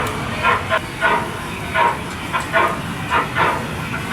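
Miniature railway's level-crossing warning bell ringing in short repeated strikes, about two a second and unevenly spaced, over a steady low rumble.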